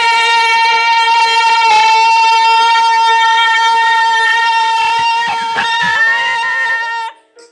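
Two women belting one long held high note together with a light vibrato, the final sustained note of the song; it cuts off about seven seconds in.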